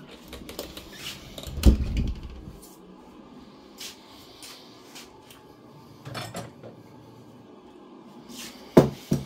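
Kitchen handling knocks and clatters: a heavy thump about a second and a half in, a few lighter knocks, then two sharp knocks near the end as a glass bowl is handled at the cooker.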